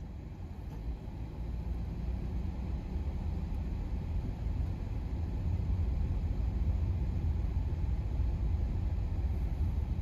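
Car driving along a snow-covered road: a steady low rumble of road and engine noise that grows slightly louder over the first few seconds.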